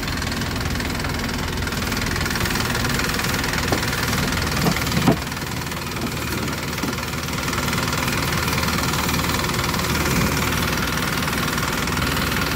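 An exposed car-type engine driving a wooden river longboat, running steadily under way, heard close up on the deck. A few brief knocks come about four to five seconds in.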